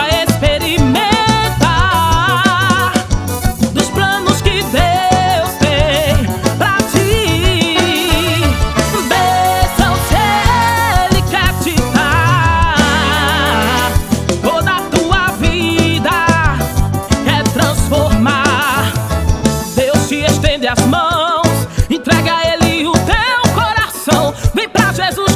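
Forró gospel music with a steady beat, bass line and a wavering melodic lead, without sung words.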